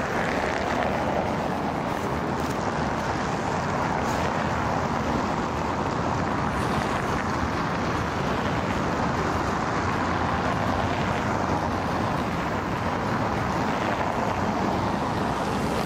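Steady traffic noise of cars driving past on a cobblestone street, an even rush of tyre and engine sound with no single event standing out.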